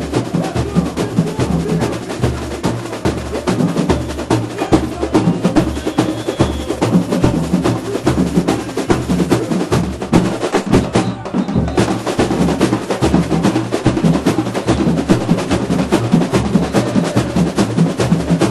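A samba school bateria playing a batucada: deep surdo drums beat a steady pulse under dense rolls of snare and other small percussion. The high percussion cuts out briefly about 11 seconds in, then comes back.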